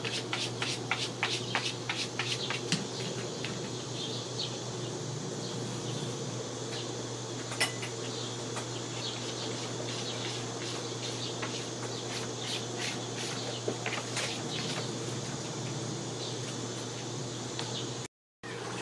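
Steady low hum under a constant high hiss, with many short clicks and ticks, thickest in the first few seconds and scattered after.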